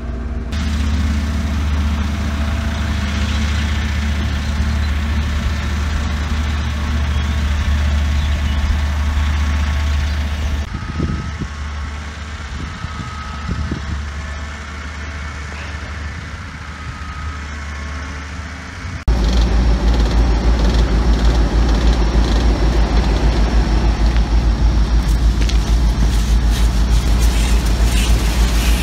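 Engine of an Amazone Pantera 4503 self-propelled sprayer running steadily, heard from inside the cab while driving across the field at about 12 km/h. About ten seconds in it gives way to a quieter, more distant machine sound, and a little past halfway a louder, pulsing machine drone cuts in abruptly.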